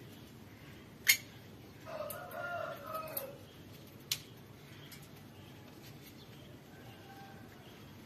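A rooster crows once, about two seconds in, a drawn-out call lasting about a second and a half. A sharp click comes just before it and another about a second after it.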